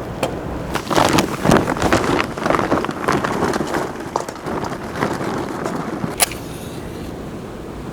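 A busy run of clatters and knocks, ending in one sharp click about six seconds in, over a steady background rush.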